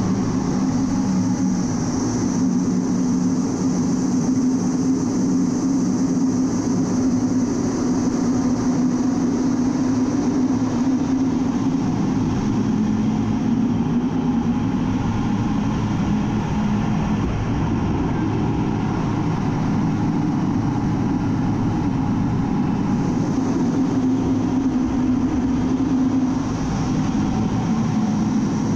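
Steady cockpit noise of an A-10 Thunderbolt II in flight: its twin TF34 turbofan engines and rushing air make a constant loud drone. A low hum sits under a hiss, and the noise swells and eases slightly a few times as the jet manoeuvres.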